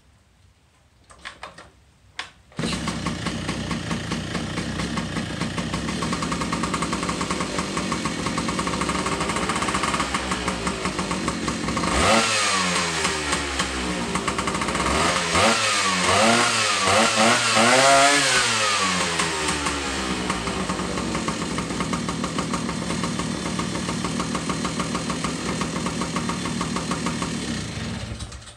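Rebuilt 1976 Sprint motorcycle engine starting after a couple of faint clunks, idling, revved up and down several times, then idling again until it is shut off near the end. It runs smoothly but very rich, its carburettor still set up for an air leak that has since been fixed.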